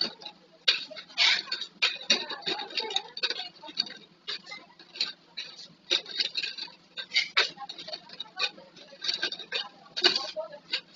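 Irregular clicking and clattering of plastic flip-top bottles being handled and knocking against each other, several sharp knocks a second.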